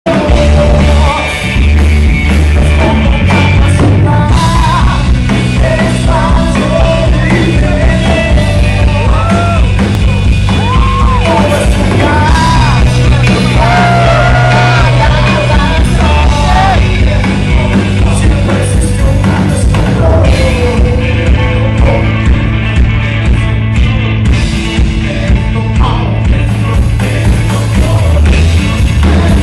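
Live rock band playing loudly, electric guitar and a heavy low backing, with a singer singing into a microphone over it; the music runs on without a break.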